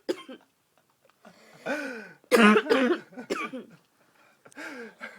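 A woman in bed making several short bouts of rough, coughing and throat-clearing vocal sounds, the loudest about two and a half seconds in.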